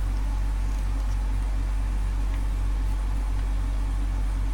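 Steady low electrical mains hum at about 50 Hz, with a few faint light clicks over it.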